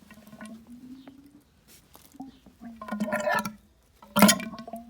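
Oil-filled motorcycle front fork leg being pumped by hand to draw the fresh oil into the damper. The oil gurgles and squelches, with tones sliding up and down, and there is one sharp metal knock about four seconds in.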